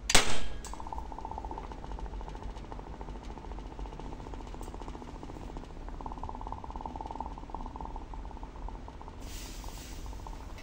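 A red-hot metal ball dropped into a wine glass of raw egg: a sharp hit as it goes in, then steady sizzling and fine crackling bubbles as the egg boils and steams around it. A short louder hiss comes near the end.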